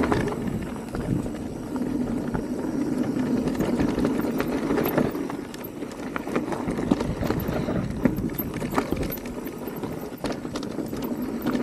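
E-mountain bike riding down a dirt trail: tyre rumble over the ground, with frequent clicks and knocks of the bike rattling over bumps and roots.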